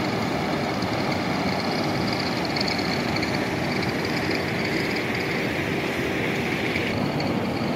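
Large belt-driven ceramic ball mills running: a steady mechanical rumble with a faint steady hum.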